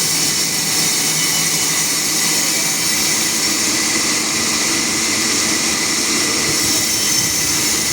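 Sawmill machinery running steadily, a loud, even, high-pitched hiss with no breaks.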